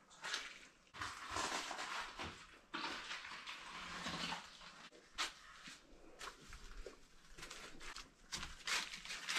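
A person breathing hard in two long breaths, then scuffing footsteps on rock and dry leaves while moving through a cave.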